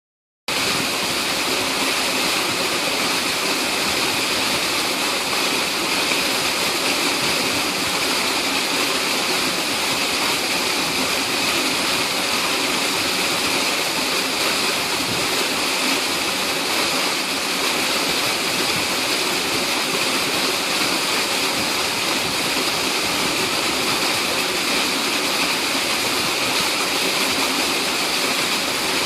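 Small waterfall: a steady, unbroken rush of falling water, starting abruptly about half a second in.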